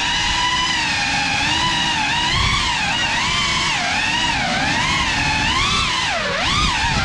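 FPV quadcopter's electric motors whining in flight, the pitch sliding up and down continuously with the throttle.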